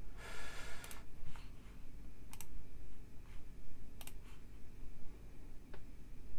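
Computer mouse clicks: a few sharp single clicks spaced a second or two apart, with a quick double click about four seconds in, after a brief rustle near the start.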